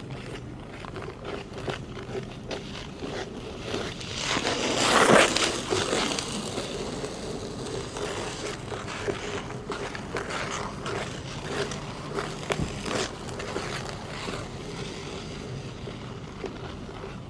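Steel ice-skate blades scraping and cutting across hard natural black ice, stroke after stroke, with the loudest, closest pass about four to six seconds in.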